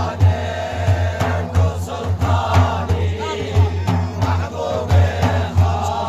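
Kurdish Sufi madih, a religious praise song: voices chanting the melody together over a low drum beating about once a second.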